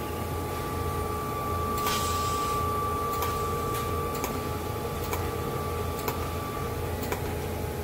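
Argon (TIG) welding on stainless steel: the welder and arc give a thin steady tone that starts about two seconds in and stops near the end, over a low steady hum. Light ticks come about once a second.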